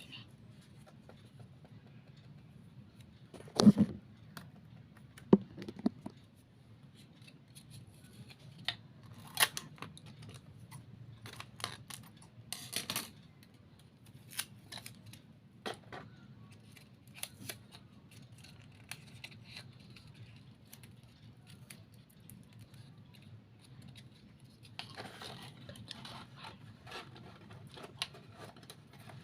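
Scissors cutting and crafting materials being handled: scattered short snips and clicks over a low steady hum, with a couple of sharper knocks about four and five seconds in.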